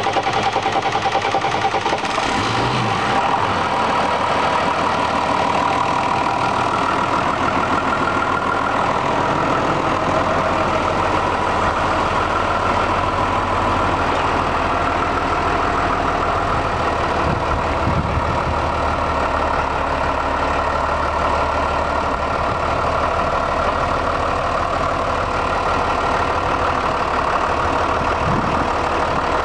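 2004 New Holland TS115A tractor's diesel engine idling steadily.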